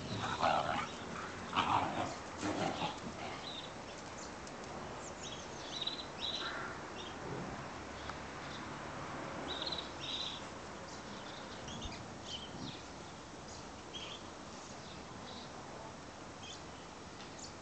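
Giant schnauzers, a puppy and an adult, giving short yips and barks as they tug at a cloth in play; several come close together in the first three seconds, then fainter ones are scattered through the rest.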